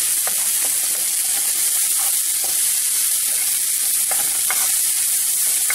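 Diced onion with a green chile and dried chiles de árbol sizzling in hot oil in a frying pan, stirred with a wooden spoon: a steady frying hiss with a few short clicks. The onion is in its first stage of frying, not yet translucent.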